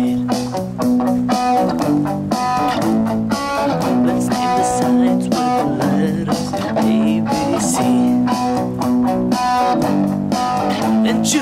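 Instrumental passage of a rock song: electric guitar playing over a steady programmed drum beat. The guitar is a Squier Bullet Strat HSS run through a Zoom G1X Four multi-effects pedal, which also supplies the drums.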